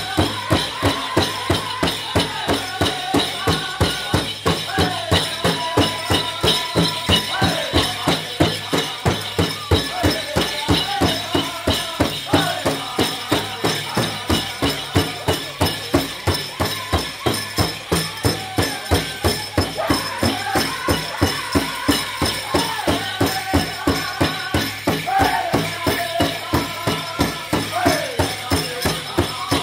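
A powwow drum group singing in high, wavering voices over a steady, fast, even drumbeat, with the jingling of dancers' bells throughout.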